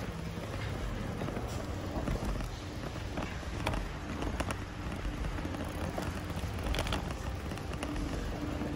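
Wind on the microphone and street noise while riding a bicycle, a steady low rumble with a few light clicks and rattles.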